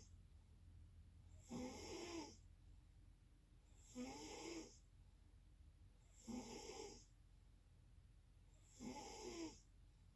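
Quiet snoring in a slow, even rhythm: four snores, each under a second long, about every two and a half seconds.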